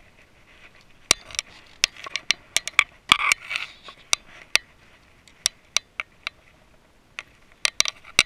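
A landed fish thrashing on the line against the side of a fiberglass skiff: a string of sharp, irregular knocks and slaps, with a short splash about three seconds in as it is lifted out of the water.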